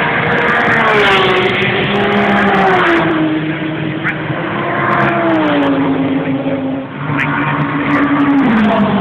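British GT race car engines at speed on the circuit, the engine note falling in several steps over the seconds.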